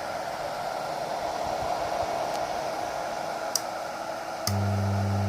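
Hartke bass amplifier in bridge mode hissing steadily through its speaker cabinets, then after a click about four and a half seconds in, a loud steady low hum starts. This is the unwanted noise the faulty amp makes.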